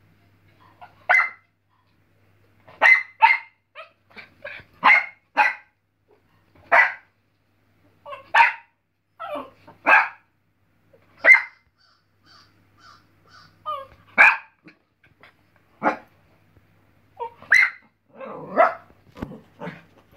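West Highland White Terrier puppy barking at a squirrel on the television: short, sharp barks, about fifteen of them, coming singly or in quick pairs a second or two apart.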